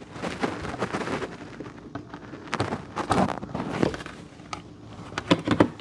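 Irregular clicks, knocks and scraping of a Kwikset Powerbolt 2 deadbolt's parts being handled, as a part is pulled out and refitted the other way round.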